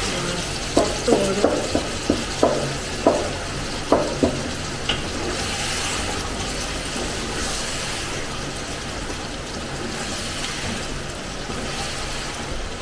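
Wooden spoon stirring chicken and tomato masala in a large pot of biryani base over the heat: the masala sizzles steadily, with a quick run of knocks and scrapes of the spoon against the pot during the first four seconds or so.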